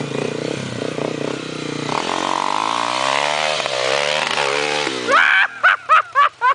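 Honda XR250 Tornado's single-cylinder four-stroke engine on a hill climb: it runs low at first, revs up hard about two seconds in, then its pitch sags and climbs again under heavy load on a near-vertical dirt bank, and it dies about five seconds in as the bike stalls and tips over. Loud shouting breaks in near the end.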